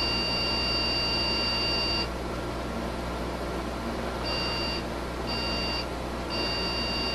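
A PC's motherboard speaker sounding a POST error beep code, two short beeps then one long beep, repeating. This is a startup hardware-error code: the motherboard is alive but something is wrong. A steady fan hum runs underneath.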